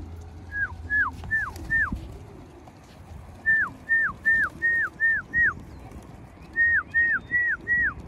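A person whistling the same short note again and again, each a high whistle that drops sharply in pitch, in quick runs of four to six with pauses between. It is a fancier's whistle calling racing pigeons down into the loft.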